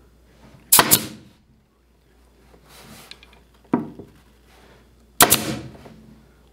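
Pneumatic pin nailer firing pins into a thin glued-on wooden moulding strip: sharp pops, a close pair under a second in, then single pops nearly four seconds in and just past five seconds, each with a short trailing hiss.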